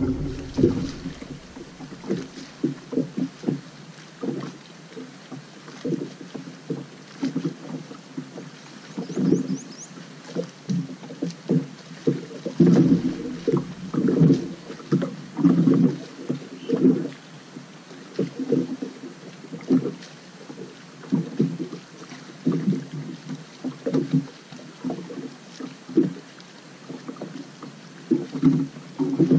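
Water lapping and slapping against a boat hull in irregular low slaps, one or two a second.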